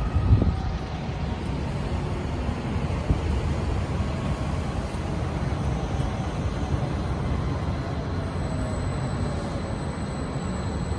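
Steady low rumble of city street traffic, with a brief thump a split second in as the phone is swung around.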